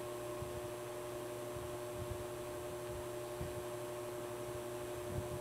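Steady electrical hum with two constant tones over a faint hiss, unchanging throughout.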